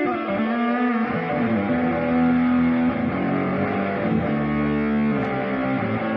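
Electric guitar played through a Ring Boost Ranger RMB booster pedal, sounding a phrase of held notes with pitch glides in the first second.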